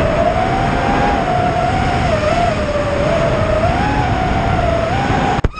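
Racing quadcopter's brushless motors whining over heavy rushing air and propeller noise, the pitch rising and dipping as the throttle changes. The sound cuts off suddenly near the end.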